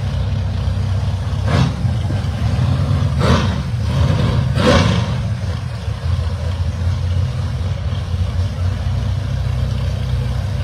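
Drag-race car's engine idling at the starting line with a steady low rumble, with three short, sharp, louder sounds in the first five seconds.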